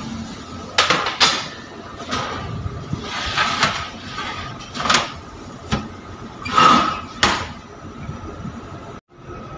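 Sheet-metal baking trays clanking and scraping as they are slid onto the racks of a stainless steel oven, a string of sharp metallic knocks, then the oven door shutting, over a steady hum.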